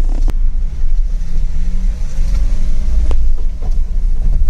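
Road vehicle running: a steady low rumble, with a sharp knock about a third of a second in and another about three seconds in.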